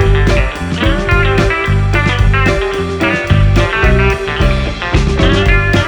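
Background music: guitar-led track with a steady beat.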